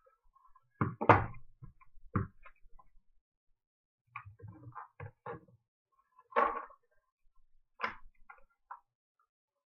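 Clicks and knocks of an airsoft rifle's parts being handled and set against a wooden table during disassembly: a loud pair of knocks about a second in, a cluster of lighter clicks around the middle, then single knocks later.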